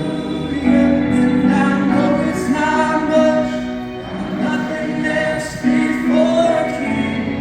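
Music with singing voices, long sung notes held one after another.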